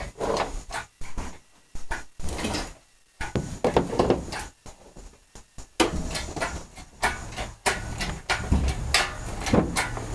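Irregular metal clunks, knocks and rattles from work on a junk car's engine removal. A steady low rumble joins underneath about six seconds in.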